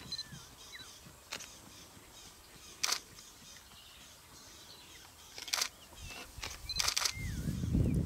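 A handful of sharp camera shutter clicks, spaced a second or more apart, over quiet bush where birds give short gliding whistles. A low rumbling noise builds near the end.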